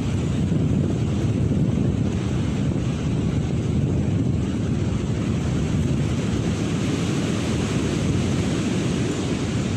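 Strong wind gusts buffeting a tent, heard as a steady low rumble with wind blowing across the microphone.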